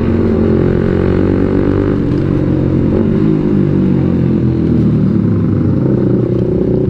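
Suzuki motorcycle engine running under way at low speed, its note dipping and rising slightly with the throttle.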